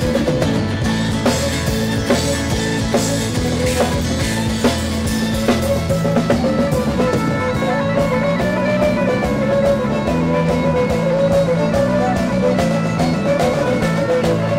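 A band playing live folk-rock: a strummed acoustic guitar over a drum kit beat, with bagpipes, their steady drones and a chanter melody, coming through more clearly from about halfway.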